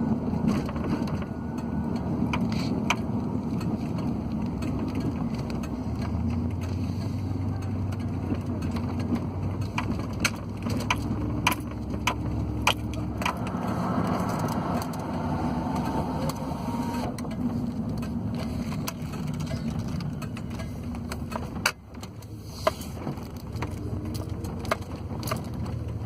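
Car cabin noise while driving: a steady engine and road rumble with a low hum, and scattered sharp clicks and knocks.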